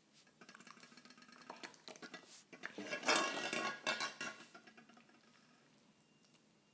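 Slime being handled and stirred, a dense run of crisp clicks and crackles that builds to its loudest about three seconds in and dies away after about four and a half seconds.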